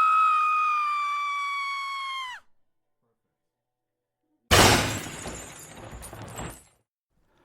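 Two comedy sound effects. First a long held whistle-like tone, sinking slowly in pitch as it fades, stops about two and a half seconds in. After two seconds of silence comes a sudden shattering crash that dies away over about two seconds.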